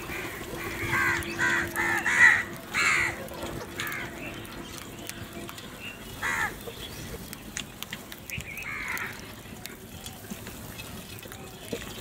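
House crows cawing around a food bowl: a quick run of harsh caws in the first three seconds or so, then single caws about six and nine seconds in, with scattered faint clicks between.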